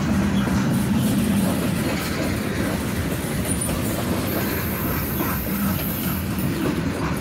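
Freight train cars rolling past close by: a steady rumble and clatter of steel wheels on the rails.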